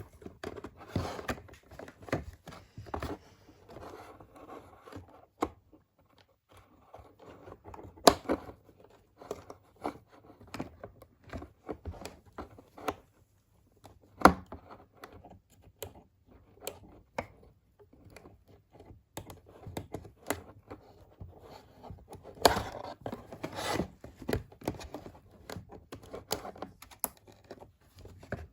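Toy doll packaging being handled and opened by hand: irregular scrapes, rustles and clicks of plastic and cardboard, with two sharp snaps, one about eight seconds in and one about fourteen.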